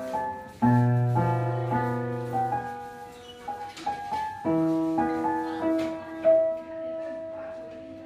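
Lester upright piano played slowly: a melody over chords, with a new phrase starting about halfway through, ending on a long held note that fades out near the end.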